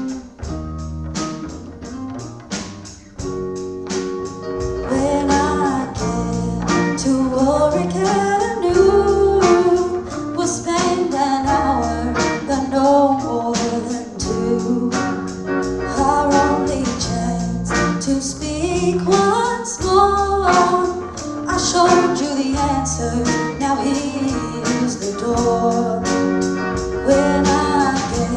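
Live rock band playing: drums, electric guitars, bass and keyboard, with a woman singing lead from about five seconds in after a short instrumental stretch.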